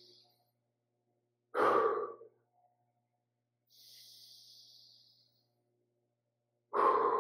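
A man's rhythmic breathwork breathing: a faint, hissing in-breath, then a short, loud sigh-like breath out, the cycle coming twice, with the loud breaths about a second and a half in and near the end.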